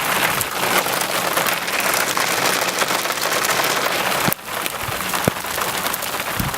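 Hailstones pelting down hard: a dense, loud crackle of countless small impacts, with a few sharper knocks in the second half.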